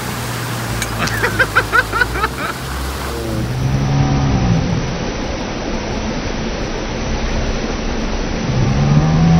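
Steady rush of water and spray as a water-skier is dragged through the water behind a towboat, with the boat engine's low hum under it in the first few seconds. Low, drawn-out warbling sounds come about four seconds in and again near the end.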